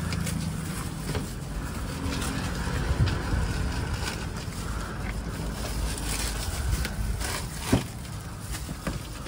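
Low, steady rumble of street traffic, with plastic bags rustling and fruit being handled. A sharp knock about three-quarters of the way through, from a cleaver against the bag or tray.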